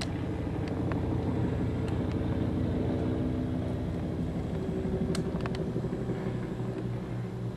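Helicopter flying overhead: a steady low rotor beat with engine drone.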